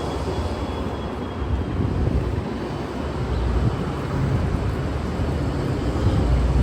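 VIA Rail passenger train running, heard from inside the coach: a steady low rumble that swells and eases slightly.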